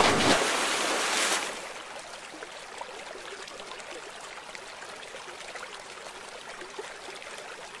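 A plastic toy dump truck splashes into river water, with loud spray for about a second and a half. Then quiet trickling and lapping of water around the floating truck.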